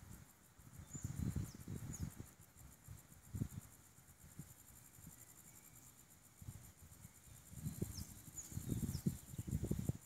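Steady high-pitched insect chorus, with a few short falling bird whistles about a second in and again near the end. Irregular low rumbles and thumps, the loudest sounds, come about a second in and through the last few seconds.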